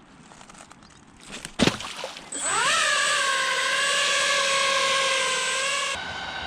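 A sharp knock, then a small electric motor spins up with a quick rising whine and holds a steady, loud whine, which drops in level near the end.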